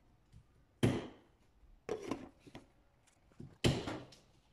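Four short knocks and clunks of kitchen handling, the loudest about three and a half seconds in.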